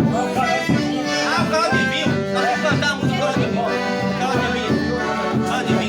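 Live festive folk music: an accordion playing held chords over a steady percussion beat, with voices singing.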